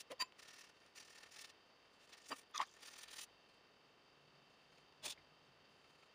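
Faint handling sounds on a tabletop: a few light clicks and short, soft rustling scrapes, with quiet room tone between them, as the watercolour paper is shifted.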